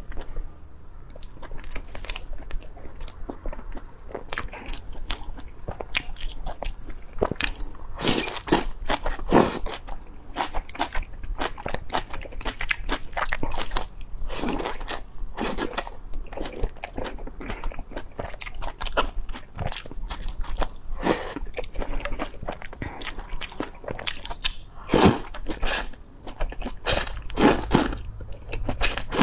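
Close-miked eating sounds: wide flat noodles in chili-oil sauce slurped and chewed. Many short chewing and biting sounds, with several longer slurps.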